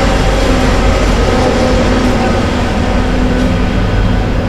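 CSX freight train passing close by: the diesel-electric locomotive's engine runs loud and steady over the noise of the wheels on the rails as the first double-stacked intermodal container cars roll past.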